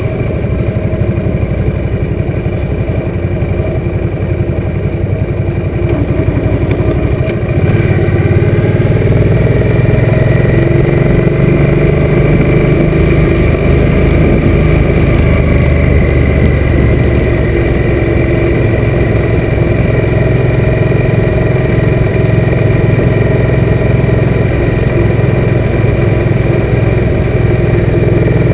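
Suzuki M800 V-twin motorcycle engine running under way while riding, heard from the rider's own bike; about seven seconds in it gets louder and heavier as the bike pulls harder, then holds steady.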